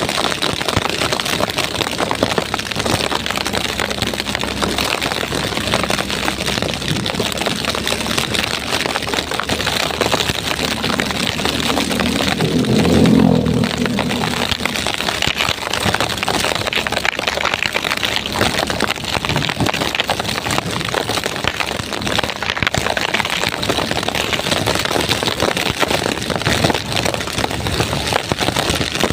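Heavy rain pouring down in a storm, a steady, dense hiss. About halfway through, a vehicle engine passes, briefly rising above the rain and then fading.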